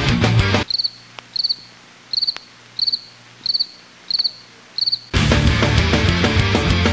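Loud music cuts off under a second in, leaving a cricket chirping: seven short chirps about every half-second, over near quiet. The music comes back in about five seconds in.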